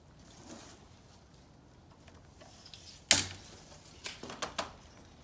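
Metal mobile home skirting panel being handled against a work trailer: one sharp clack about three seconds in, then a quick run of lighter clacks a second later.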